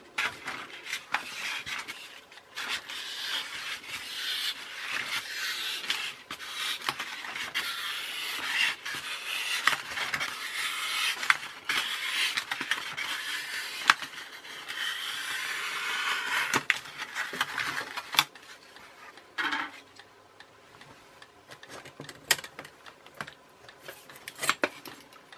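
Snap-off craft knife cutting through a styrofoam plate: a long rasping scrape with small clicks, as the blade is drawn around the plate to cut out its flat centre. A few seconds before the end it dies down to scattered light clicks.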